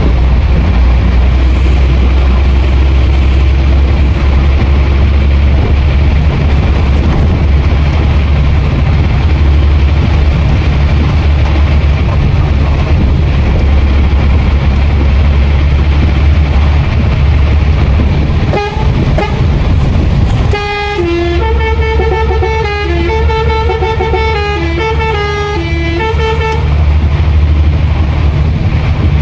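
Hino 500 truck's diesel engine and wet-road noise heard from inside the cab, a steady low rumble with the hiss of heavy rain. About two-thirds of the way through, a multi-note horn plays a short tune for about six seconds.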